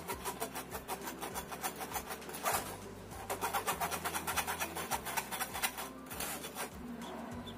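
Flour and baking powder being sifted through a kitchen sieve: a rapid, rhythmic rasping as the sieve is worked, in several runs, loudest in the middle.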